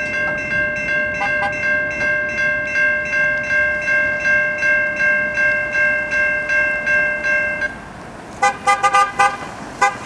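Railroad crossing bell ringing steadily at about three strokes a second, stopping suddenly about three-quarters of the way through as the crossing gate lifts. Then several short car-horn honks near the end.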